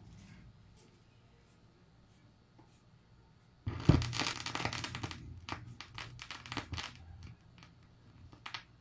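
A phono stylus, an Audio-Technica AT95 cartridge, setting down on a vinyl LP: a sudden thump about three and a half seconds in, a second or so of rushing noise, then scattered crackles and pops from the record's lead-in groove, all over a low steady hum from the tube amplifier.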